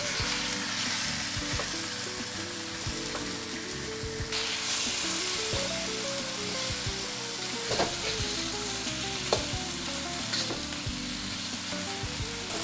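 Beef slices sizzling in hot oil in a carbon steel wok on high heat, stir-fried with a metal wok spatula. The sizzle grows brighter about four seconds in, and the spatula scrapes and clicks against the pan a few times in the second half.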